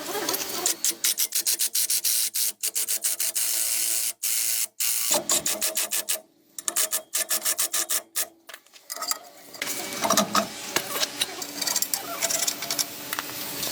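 Quick repeated rubbing or scraping strokes against a surface, in runs broken by two short pauses.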